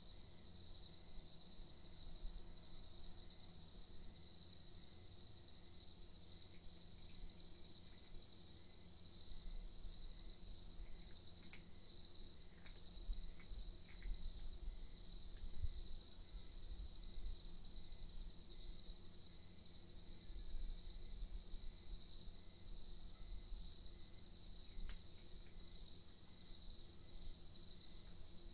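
Crickets chirping in a steady, high-pitched chorus that pulses about twice a second, over a low rumble.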